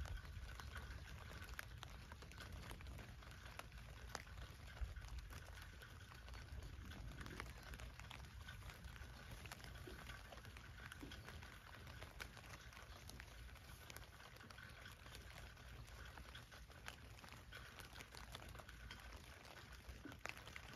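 Faint rain pattering on a tent, with scattered single drops ticking on the fabric over a low steady rumble, and one louder tap about five seconds in.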